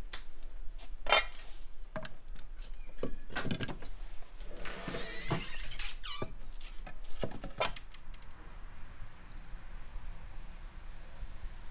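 Split firewood logs knocking against each other and the brick hearth as they are stacked in a fireplace, with paper rustling and crumpling around the middle. The knocks thin out in the last few seconds.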